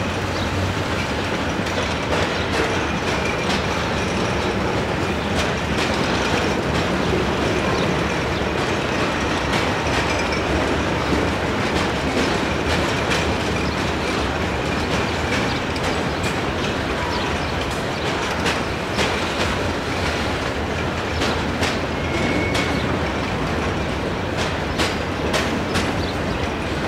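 Freight train of CSX gondola cars rolling past, with a steady rumble of wheels on rail. Sharp clicks come over the rail joints, more often in the second half, and a few faint, brief high wheel squeals.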